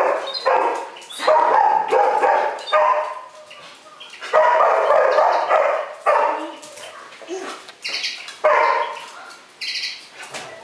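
A dog barking repeatedly, a string of loud barks with short pauses between them.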